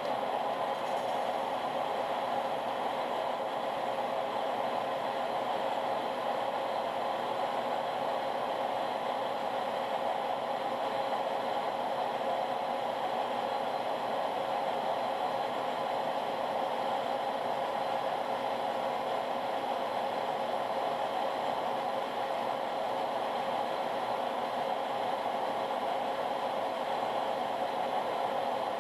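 Metal lathe running steadily while turning a bushing held between centers: an even machine whir with a constant hum, unchanging throughout.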